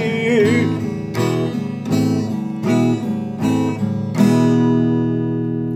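Acoustic guitar strumming chords in an even rhythm, about one strum every three-quarters of a second, ending on a last chord about four seconds in that is left to ring and fade. A held sung note trails off in the first half second.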